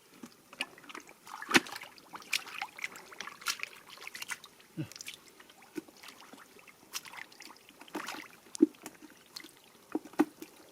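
Water splashing and dripping in many small, irregular splashes, with a couple of sharper splashes, one about a second and a half in and another late on.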